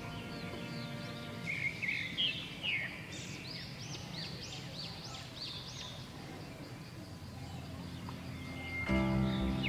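Birds chirping, many short, high, arching calls in quick series. Background music fades out at the start and comes back near the end.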